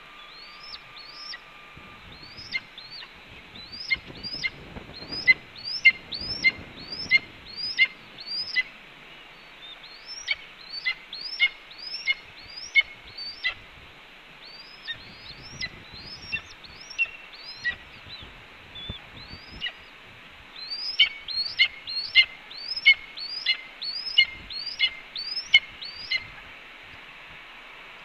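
Red-tailed hawk nestlings begging with a long series of short, high, rising peeps, about two a second, in several bouts with short pauses, as a parent brings food to the nest. A few low rustles and thumps come from movement in the nest.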